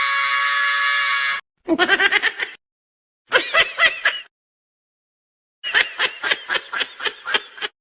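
High-pitched cartoon voice: a held note, then three short bursts of rapid giggling separated by silence.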